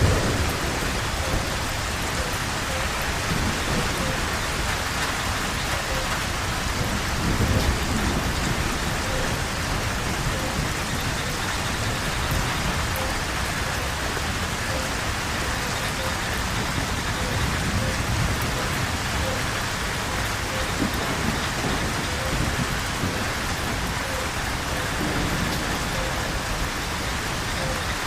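Steady heavy rain falling on the forest, with low thunder rumbling up and fading under it, loudest about seven seconds in.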